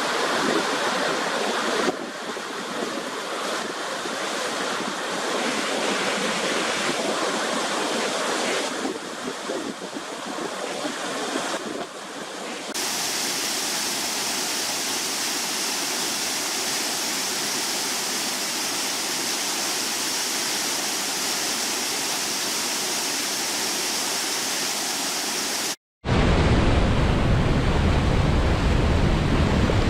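Waterfall: steady rushing and splashing water. Its tone shifts abruptly several times, with a brighter, hissier stretch from about 13 seconds in. After a split-second dropout near the end it returns louder and deeper.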